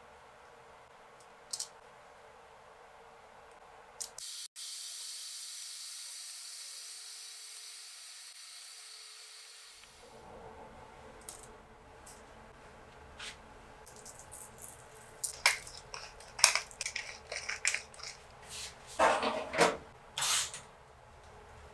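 Light kitchen handling: a steady hiss for several seconds, then a run of sharp clicks and taps as potato wedges are set on a foil-lined baking tray. Near the end comes the clicking of a toaster oven's timer dial being turned.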